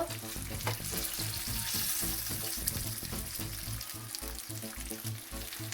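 Flour-coated chicken pieces sizzling in hot vegetable oil in a frying pan, a steady hiss with many small crackles. Background music with a steady low beat runs underneath.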